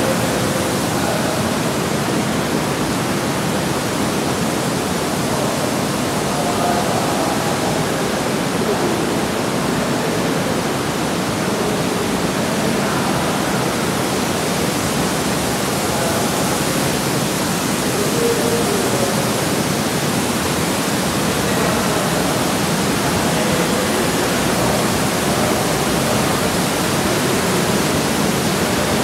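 Steady rush of water churned by the jets and inflows of an indoor thermal bath pool, an even, unbroken hiss that echoes in the tiled hall.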